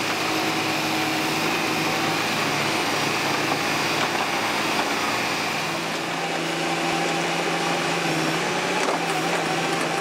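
Caterpillar crawler excavator's diesel engine running steadily while digging, with a constant high whine over the engine drone.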